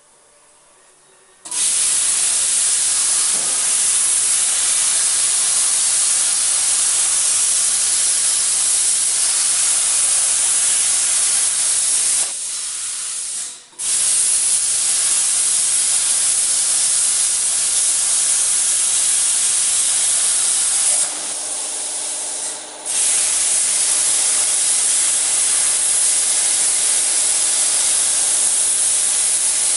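Plasma torch on a portable CNC cutting machine cutting steel plate: a loud steady hiss that starts abruptly about a second and a half in. Twice the hiss drops away for a second or two and then resumes.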